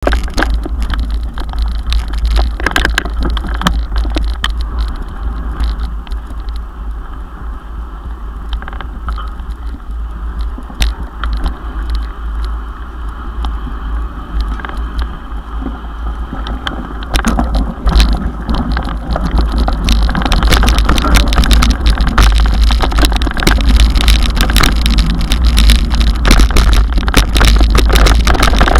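Mountain bike ridden over a rough dirt and gravel trail, heard from a camera on its handlebars: a constant low rumble with many sharp knocks and rattles as the wheels hit bumps. It grows louder a little past halfway through.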